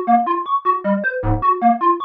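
Moog DFAM analog percussion synthesizer playing a fast looping sequence of short pitched notes, about six a second, through a Strymon Ola chorus pedal. A deep low drum hit comes once, a little past the middle.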